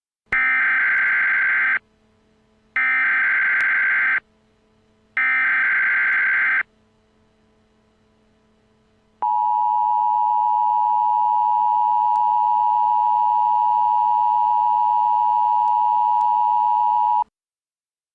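Emergency Alert System tones: three screeching bursts of SAME header data, each about a second and a half long with a short gap between, then the steady two-tone attention signal held for about eight seconds before it cuts off. The coded header and attention signal mark the start of a broadcast emergency alert.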